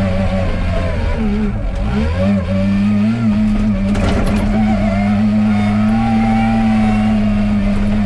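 Komatsu WA40 wheel loader's diesel engine running under working throttle. About one and a half seconds in, its pitch sags and wavers, then it recovers and runs steady.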